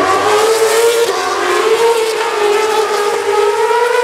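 Formula One cars' 2.4-litre V8 engines running at high revs on track, a sustained high engine note whose pitch rises and dips slightly.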